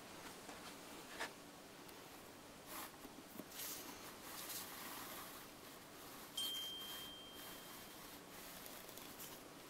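Faint rustles and light clicks of a lazy Susan turntable being turned slowly by hand. About six seconds in, a sharp click is followed by a thin high ring that dies away after a second or so.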